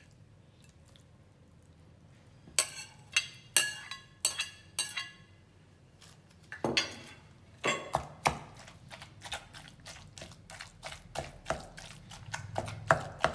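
A few sharp clinks of dishware about three seconds in. From about halfway through, a wooden pestle pounds fish into herb paste in a wooden mortar: irregular dull thuds, several a second.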